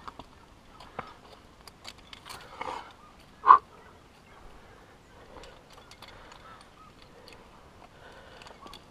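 A climber breathing while climbing, with scattered light clinks of carabiners and cams on the harness. About three and a half seconds in comes one short, loud call, the loudest sound.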